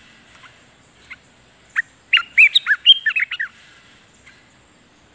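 Olive-winged bulbul singing: a few scattered single notes, then about two seconds in a quick run of short whistled notes that rise and fall, lasting about a second and a half.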